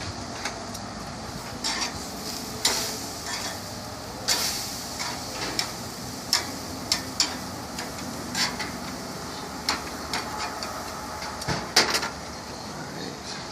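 Steaks sizzling while being flipped, with repeated sharp clinks and knocks of a metal utensil against the cooking surface.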